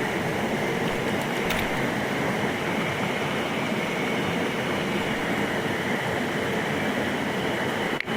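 Steady, even rush of a mountain headwater stream, with a brief drop in level near the end.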